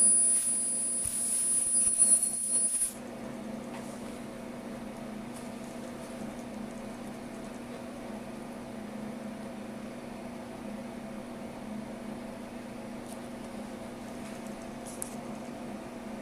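Ultrasonic cutting blade running with a steady high-pitched whine and hiss as it cuts a chocolate-coated cake bar, stopping suddenly about three seconds in. A quieter steady low hum goes on afterwards.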